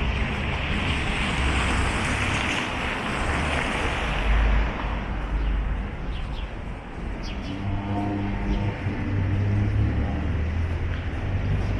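City street traffic: a car passes with its tyres hissing on the wet road over the first few seconds, then a lower, steady engine rumble with a faint droning hum.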